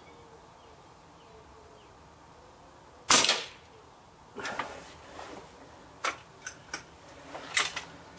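A single shot from an Air Arms Pro Sport .177 spring-piston air rifle about 3 s in, a sharp crack with a short decay. It is followed by a series of metallic clicks and clunks as the rifle is cocked and loaded for the next shot, the loudest near the end.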